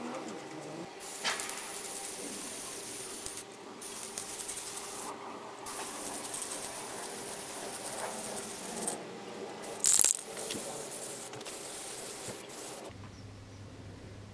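Aerosol spray-paint can hissing in about four long bursts separated by short breaks, with one brief sharp louder noise about ten seconds in. Near the end the spraying stops and only a low steady hum is left.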